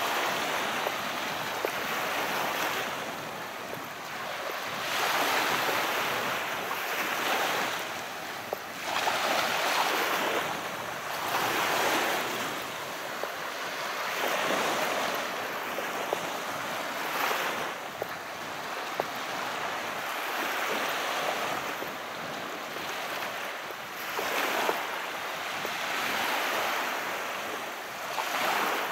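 Calm sea waves washing and breaking on the shore, the surf swelling and easing every two to three seconds.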